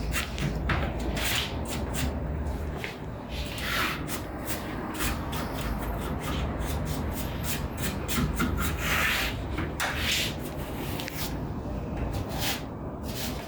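Brushing and scrubbing dust off the inside of a desktop computer case, in irregular strokes with scattered clicks and knocks against the case.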